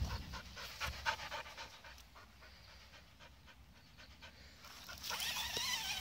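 Springer spaniel panting quickly, about three breaths a second, growing quieter in the middle. About five seconds in, a louder high wavering whine.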